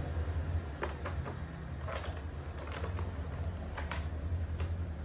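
Clear plastic food container being handled and lifted: a string of short, light plastic clicks and crackles, irregularly spaced, over a steady low hum.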